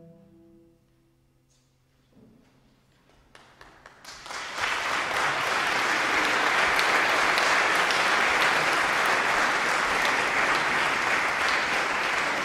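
The last chord of the music fades out, then an audience starts clapping, a few scattered claps at first, swelling into full applause about four seconds in.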